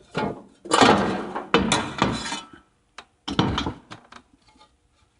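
Clattering and rattling as the air filter cover is unclipped and opened on a generator's Briggs & Stratton V-twin engine. There is a long burst of handling noise, then a shorter one about three seconds in.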